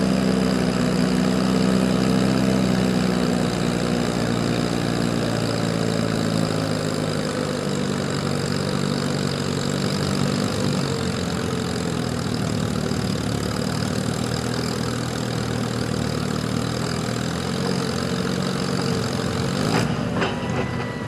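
Diesel farm tractor engine running steadily at a fairly even speed, with small shifts in pitch; it stops abruptly about a second before the end.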